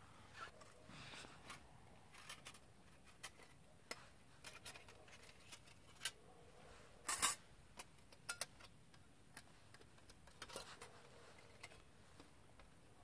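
Light metallic clicks and clinks of thin perforated sheet-metal panels being fitted together by hand into a small folding wood stove, coming at irregular intervals with the loudest clatter about seven seconds in.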